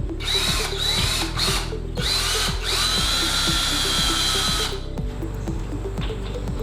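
Power drill run in several short trigger pulls, each whine rising as the motor spins up, then held for a steady run of about two seconds that stops near the end, during wall mounting for screws and anchors. Background music with a steady beat plays underneath.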